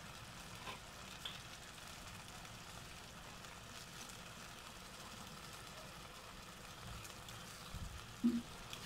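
Escabeche sauce simmering in a stainless steel pan on a gas stove: a faint steady hiss with a few light ticks.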